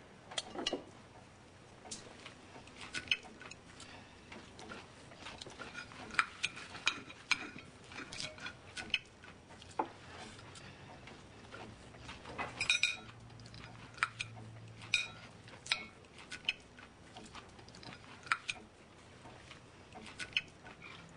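Cutlery and dishes clinking at a dinner table: irregular sharp clinks of knives and forks against plates, about one a second.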